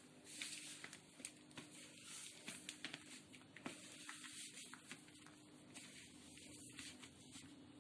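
Faint, irregular squishing and soft pats of hands kneading a jaggery-and-ghee mixture into a dough.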